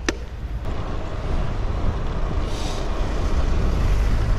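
Wind rushing over a handlebar-mounted action camera's microphone, with tyre and road noise, as a road e-bike rides along and picks up speed; the low rumble grows louder. There is a short click just after the start.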